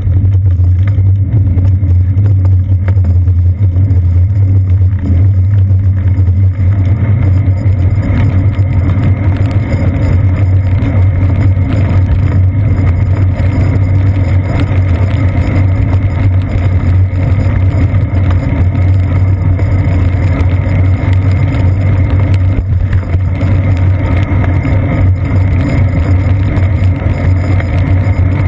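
Loud, steady low rumble of a bicycle ride on wet pavement, heard through a seat-post-mounted GoPro Hero 2's sealed housing: road and mount vibration with wind and traffic noise on top, growing a little noisier after several seconds.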